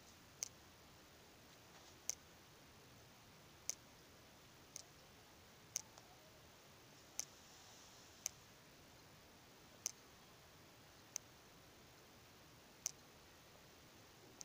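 Near silence: room hiss broken by faint, sharp clicks at uneven intervals, roughly one every second or so.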